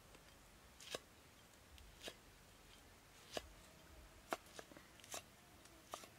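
Cleaver chopping red chilies on a round wooden chopping board: about eight sharp knocks of the blade on the wood, roughly one a second at first, then several in quick succession past the middle.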